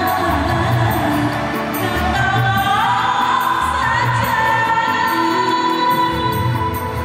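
Woman singing a dangdut song into a microphone over electronic keyboard accompaniment with a steady bass beat, amplified through a hall PA. A long note rises about three seconds in and is held for a few seconds.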